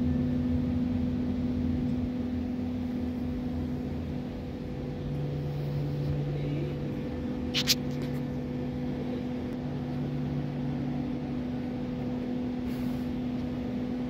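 Steady mechanical hum of running Carrier air-cooled screw chillers: a constant drone with a lower throb that comes and goes. One short click a little past halfway.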